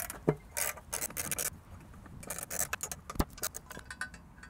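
Ratchet wrench clicking in short strokes as a bolt is backed out, with small metal clinks and scrapes. A single sharp knock sounds about three seconds in.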